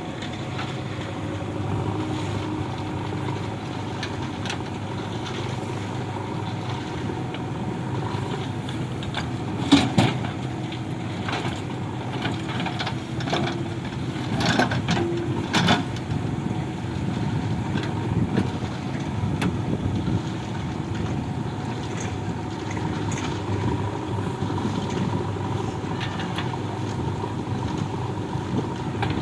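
Heavy diesel engine of earth-moving machinery running steadily. A sharp loud knock comes about ten seconds in, and a cluster of metallic clanks follows around fifteen seconds.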